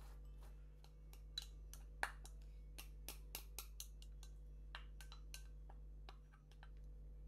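A run of light, irregular clicks and clinks of glassware against a ceramic bowl as chopped boiled egg is tipped and scraped out of a small glass bowl, over a faint steady hum.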